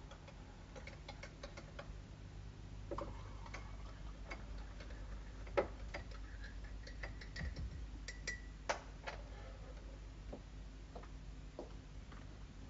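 Small clinks and taps of mugs, a teaspoon and jars on a kitchen counter as coffee is made, with two louder knocks at about five and a half and nine seconds in, over a faint low hum.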